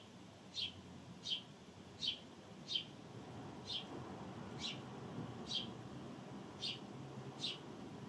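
House sparrow chirping: a string of about ten short, slightly falling cheeps, roughly one every three-quarters of a second.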